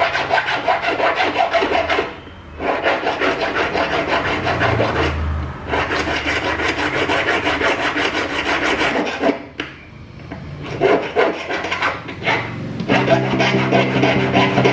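Jeweller's piercing saw cutting through twisted silver wire against a wooden bench pin: rapid back-and-forth rasping strokes, broken by two short pauses.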